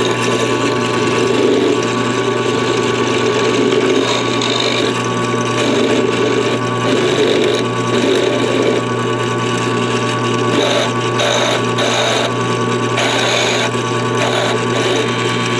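End mill cutting metal: a steady motor hum under a rough, chattering cutting noise, with harsher bursts of chatter in the second half. The chatter comes from the cutter's shank hanging too far down in a light machine not strong enough for milling.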